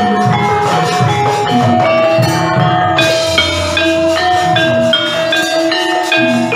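Gamelan ensemble accompanying a wayang kulit shadow-puppet play: metal mallet instruments strike a steady run of ringing notes over low drum strokes, with a deeper low tone swelling about two seconds in.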